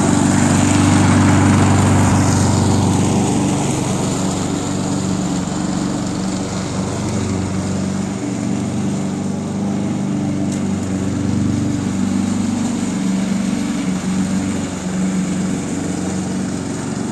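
Walk-behind gas lawn mower engine running steadily while cutting grass, loudest in the first few seconds and then somewhat quieter as the mower moves away.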